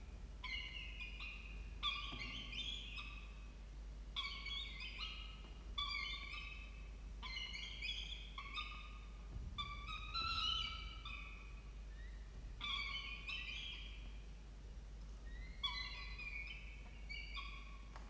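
Peregrine falcon chicks giving repeated high-pitched food-begging calls while being fed, a short call of stepped notes about every second and a half.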